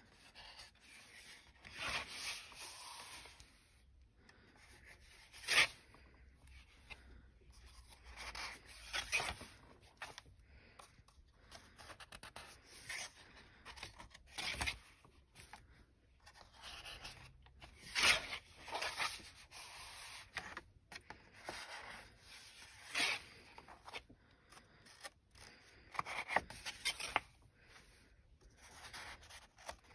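Watercolour paper pages of an A5 Moleskine sketchbook being turned and pressed flat by hand: stiff paper rustling and rubbing, with several sharper flicks as pages flip over.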